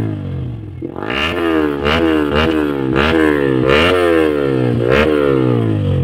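A stationary motorcycle engine being free-revved again and again for an exhaust sound check. Each throttle blip jumps up in pitch and slides back down, about one to two revs a second, after a short lull in the first second.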